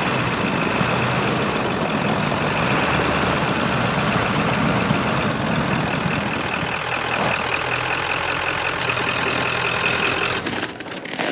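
Ford Power Stroke diesel pickup truck driving: a steady mix of engine and tyre noise with a thin high whine, cutting off suddenly near the end.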